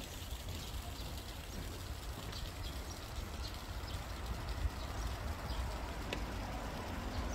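Outdoor ambience: a steady low rumble under an even hiss, with faint scattered clicks and ticks.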